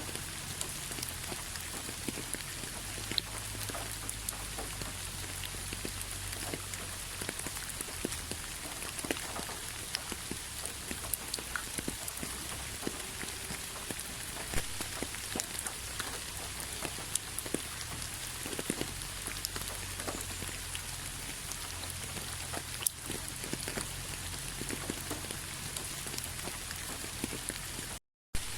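Steady rainfall: an even hiss with many individual drops ticking sharply on a surface, over a low hum. The sound cuts out for a split second near the end.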